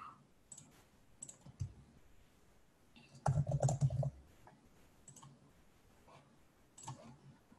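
Scattered computer mouse clicks, with a short burst of keyboard typing about three seconds in.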